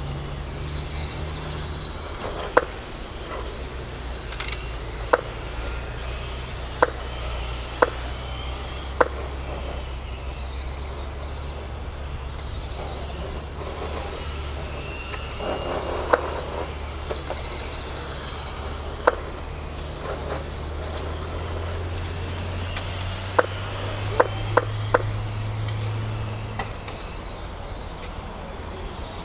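Electric 4WD mini RC cars (M-chassis) racing: a steady mix of faint high motor whine and running noise over a low steady hum, with about a dozen sharp clacks scattered through.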